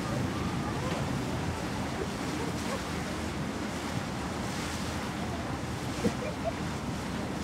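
Wind on the microphone over a steady rush of water from a coastal passenger ship under way, with a low rumble underneath. A brief knock about six seconds in.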